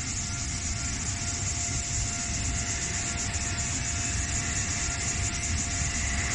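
Passenger train running past on the track: a steady, even rumble with a faint steady whine above it.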